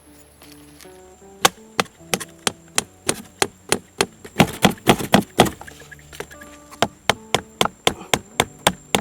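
A tool chopping wood in quick, regular sharp strikes, about three a second, starting about a second and a half in. Background music plays underneath.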